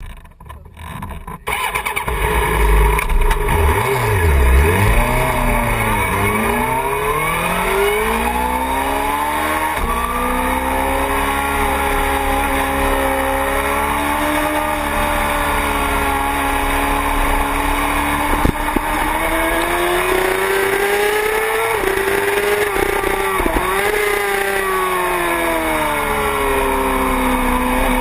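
Sport motorcycle engine heard from a tail-mounted camera as the bike pulls away from a standstill. It runs at low revs at first, then accelerates out onto the track, its pitch rising and dipping as the rider works through the gears and corners.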